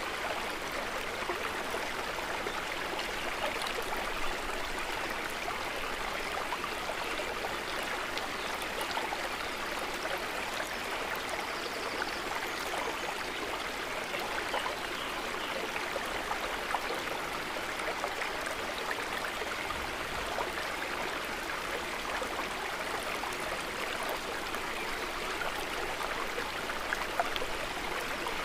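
Calm lake water trickling and gurgling softly in a steady, unbroken wash of small splashes.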